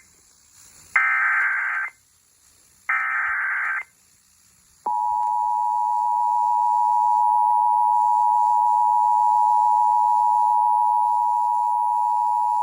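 Emergency Alert System signal: the last two SAME header data bursts, each a buzzy burst of digital tones about a second long with a second's gap between them, then about five seconds in the EAS two-tone attention signal starts, a loud steady dual tone that holds on.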